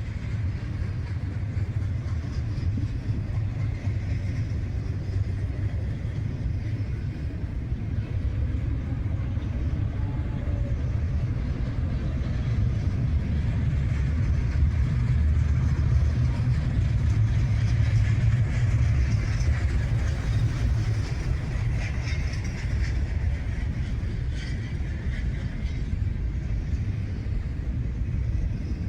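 CSX freight train rolling past, its wheels rumbling steadily on the rails, growing louder for a while midway and then easing.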